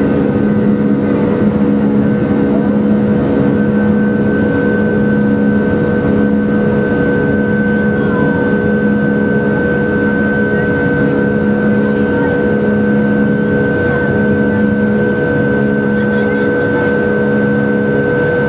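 The CFM56-5B turbofan engines of an Airbus A321-211 at takeoff thrust, heard from inside the cabin during liftoff and the initial climb. It is a loud, steady roar with steady whining tones over it.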